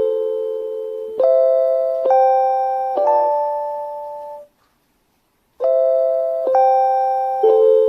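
JR Hokkaido chime for visually impaired passengers, a looped electronic bell-like melody: notes struck about a second apart, each ringing and fading, broken midway by about a second of silence before the melody starts again.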